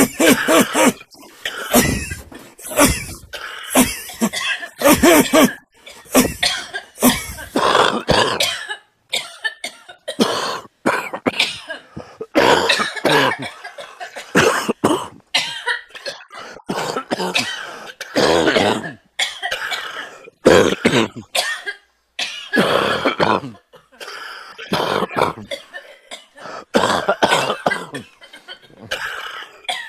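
A person coughing over and over in repeated fits, a smoker's cough.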